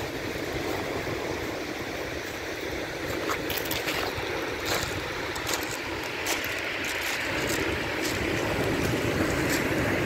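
Rough surf breaking and washing over a pebble beach: a steady rushing wash that swells a little near the end, with faint clicks throughout.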